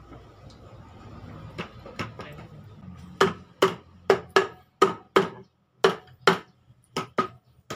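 About a dozen sharp metallic knocks, each with a brief ring, coming in a quick, irregular run from about three seconds in: tapping on the Kawasaki Fury 125 engine case as its side cover is fitted.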